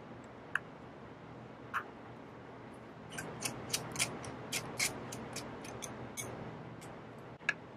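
Faint small clicks and ticks of a precision screwdriver turning out the pentalobe screws on the bottom edge of an iPhone 8: a few single clicks, then a quick run of ticks in the middle.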